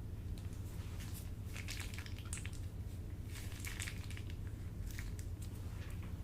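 Crunchy crackling and squishing from a soft ASMR material being pressed and worked by hand, coming in bursts, over a steady low hum.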